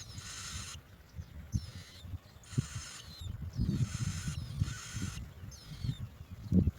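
Bird calls: repeated rasping, ratchet-like calls about once a second, with short falling chirps between them, over irregular low thuds.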